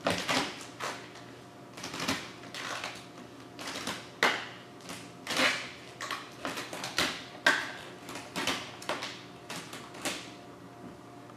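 Vinyl wrap film being lifted, peeled and re-laid over a curved hood edge while a felt-edged squeegee card is swiped across it: a run of irregular short rustles and swipes, a few every second.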